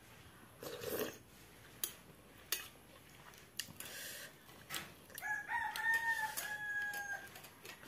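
A rooster crows once about five seconds in, a drawn-out call of about two seconds that sags slightly in pitch at the end. Before it come scattered short clicks and a brief crunching, mouth-near sound of eating with a steel spoon.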